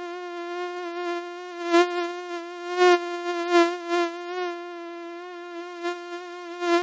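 Mosquito whining in flight. It is a steady buzzing hum that wavers slightly in pitch and swells louder several times, as if passing close to the ear.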